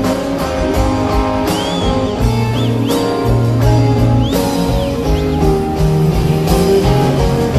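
Live rock band playing an instrumental passage, with electric guitar, bass, drums and piano. Between about one and a half and four and a half seconds in, a few high notes slide up and fall back.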